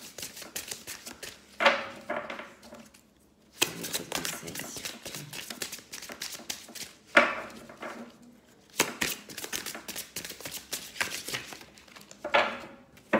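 A deck of oracle cards being shuffled by hand: a rapid run of papery flicks and clicks, with about five sharper card slaps and a short pause about three seconds in.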